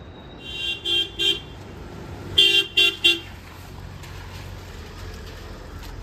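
A vehicle horn honking in two quick sets of three short toots on one steady pitch, about a second and a half apart, over a low background hum.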